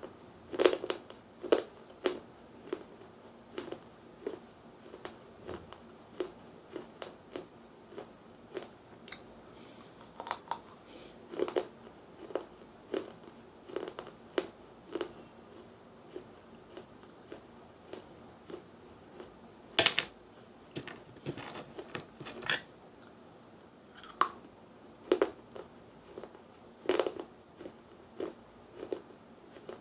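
Close-miked crunching of a person biting and chewing a small baked-clay diya: sharp, crisp crunches at about one or two a second, with one loud snap about twenty seconds in followed by a quick flurry of crunches.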